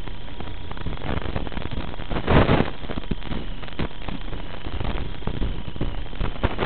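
Steady hiss and crackling static on the audio of an FPV drone's analog video feed, with a louder rushing burst about two and a half seconds in.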